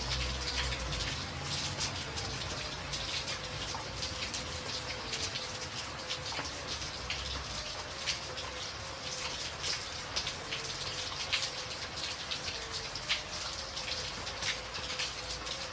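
Steady rain falling, with many sharp individual drop hits on a surface.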